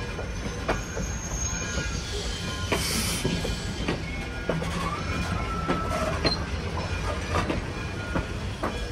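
Vintage steel passenger coaches rolling slowly past, their wheels clicking irregularly over rail joints over a steady low rumble. A short hiss comes about three seconds in, and a brief wheel squeal around five to six seconds in.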